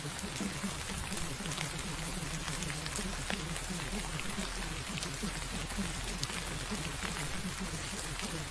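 Steady rain-sound track, an even hiss dotted with small drop clicks, over a low, muffled wavering murmur, typical of the affirmations buried under the masking sound of a subliminal.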